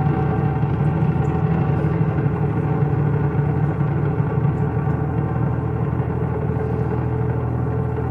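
Live trio of saxophone, double bass and electric guitar playing a slow, droning passage of held notes, steady and low-heavy, with no clear beat.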